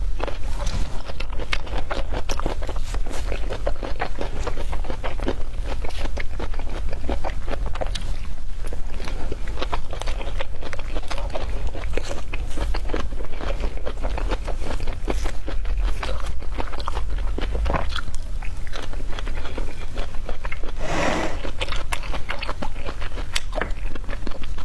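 Close-miked biting and chewing of jackfruit flesh: a dense, continuous run of small crisp clicks from the mouth working.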